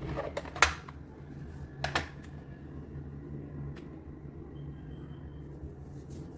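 A few keystrokes on a mechanical keyboard with linear red switches: a quick cluster of clacks at the start and two more about two seconds in. A steady low hum runs underneath.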